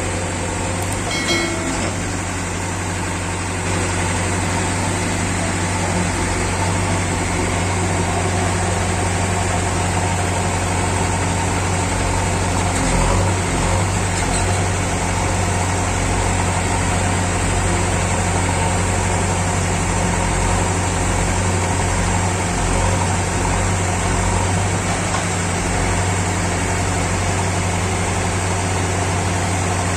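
JCB 3DX backhoe loader's diesel engine running steadily while its backhoe arm digs and dumps sand. The engine gets slightly louder about four seconds in.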